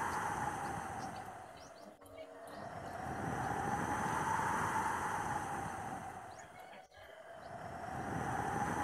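Rain and wind of a tropical storm, a rushing noise that swells and fades in slow waves and drops away briefly twice.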